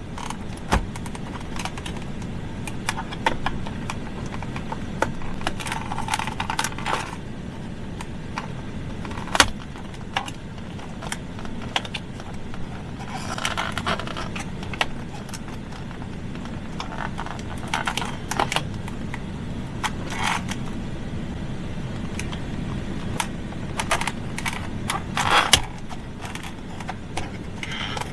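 Scattered clicks, snaps and small rattles of hard plastic trim pieces being handled and pried apart on a pickup's center console lid, with a few sharper snaps.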